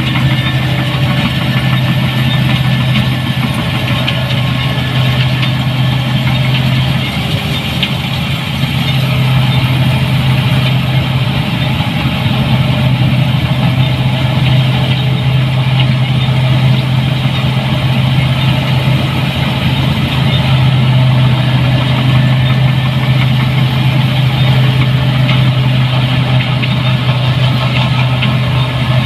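New Holland 8060 combine harvester running steadily: a continuous loud engine and machinery drone with a deep hum, easing slightly for a moment about seven seconds in.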